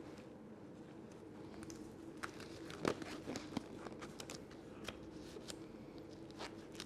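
Disposable gloves being pulled onto the hands and worked over the fingers: faint crinkling with small scattered clicks.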